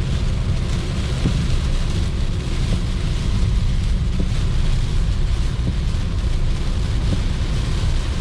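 Heavy rain falling on a moving car, over a steady low rumble of tyres and engine on the wet road.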